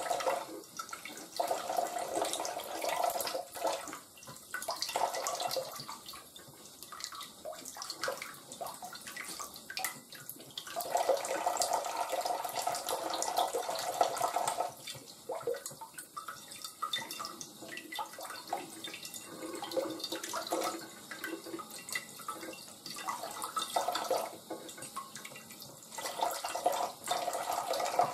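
Kitchen tap running a thin stream into a stainless steel sink, splashing onto a plate and over shaggy ink cap mushrooms being rinsed under it by hand. The splashing grows louder and softer by turns as hands and mushrooms move in and out of the stream.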